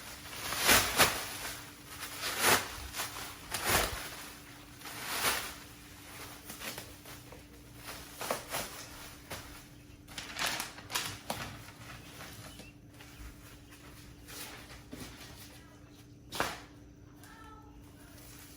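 Plastic wrapping and packing being pulled and torn off a stack of wheels and tires: irregular crinkling and ripping bursts, heaviest in the first few seconds, then sparser, with one sharp rip near the end.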